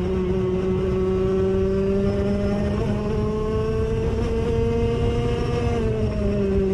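IAME KA100 100cc two-stroke kart engine pulling at full throttle down a straight, its pitch climbing slowly, then dropping about six seconds in as the throttle comes off for the next corner. A heavy low rumble runs underneath.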